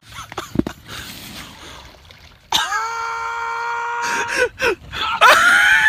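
Handling and rustling noise at first. About two and a half seconds in, a person's voice cries out and holds one long, loud, steady note for about a second and a half, then yells with rising and falling pitch near the end.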